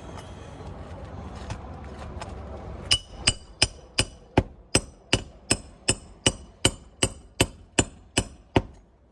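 A hand hammer driving roofing nails during a shingle repair: after about three seconds of rustling noise, a quick, even run of about sixteen sharp, ringing strikes, close to three a second, that stops shortly before the end.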